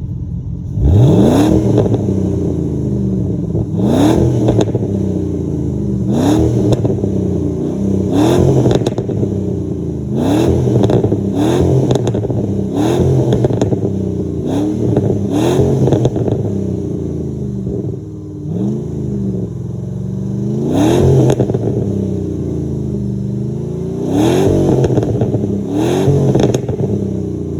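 Jeep Grand Cherokee 4.7 V8 through a Cherry Bomb glasspack muffler, revved again and again about every two seconds. As the revs fall after each blip, the exhaust crackles and pops.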